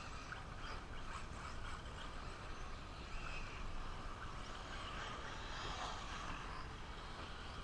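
Electric 1/8-scale RC truggies racing around a dirt track: a wavering whine of their brushless motors that rises and falls over a steady haze of noise.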